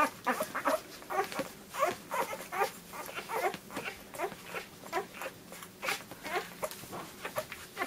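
A litter of one-week-old poodle puppies squeaking and whimpering as they nurse, with short rising squeaks coming several times a second.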